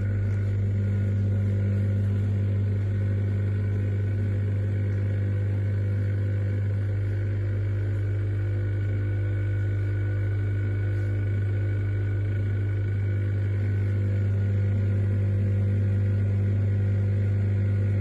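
BlitzHome 900W countertop dishwasher's pump motor running with a steady, loud hum.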